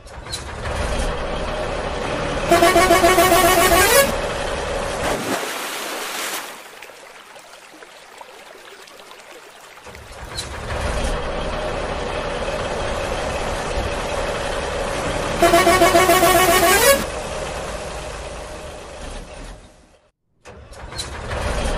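Truck engine running steadily, with a loud multi-tone truck horn blown for about a second and a half, twice, about 2.5 s in and again about 15 s in. The sound drops to a quieter hiss for several seconds in between and cuts out briefly near the end.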